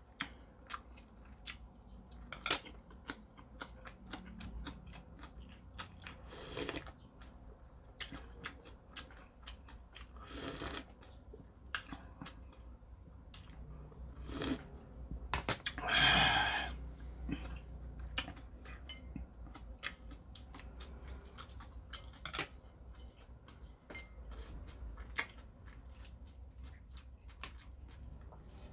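Eating sounds: scattered clicks and smacks of chewing and chopsticks. About halfway through comes a long, loud slurp of shrimp ramen broth drunk straight from the bowl. Near the end there are light crackles of shrimp shell being peeled by hand.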